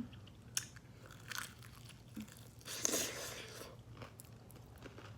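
Close-up eating sounds: biting and chewing crunchy food, with a few short sharp crunches and a longer, louder crunch about three seconds in.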